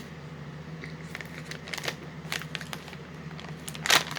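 Plastic candy packaging being handled and crinkling in short, scattered crackles, with one louder crackle near the end.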